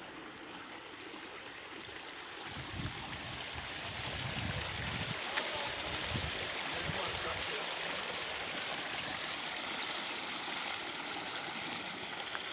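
Stream water running over a low concrete sill: a steady rushing that grows louder over the first few seconds and then holds, with a few low rumbles partway through.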